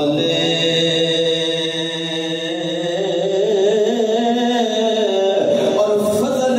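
A man chanting devotional verses unaccompanied into a microphone, holding long, wavering melodic notes.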